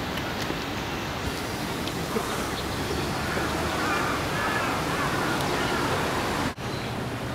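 Steady outdoor background rush, with faint crow caws a few seconds in.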